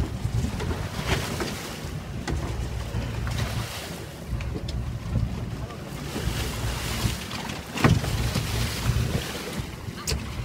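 A large hooked fish thrashing at the surface beside a boat's hull, throwing up irregular splashes, the biggest about eight seconds in. Under it runs a steady low rumble, with wind on the microphone.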